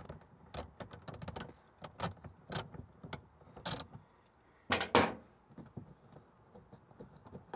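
Ratchet with a 10 mm socket clicking in short, irregular strokes as it backs out a 10 mm bolt. Two louder clicks come near the middle, then only faint ticks.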